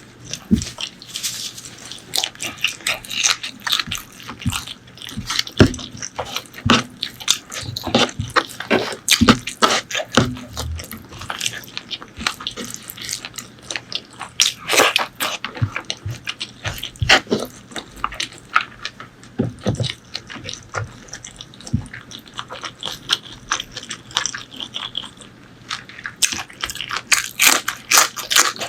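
Close-miked eating of spicy pork leg curry with rice: wet chewing and mouth smacking, with many irregular sharp clicks throughout.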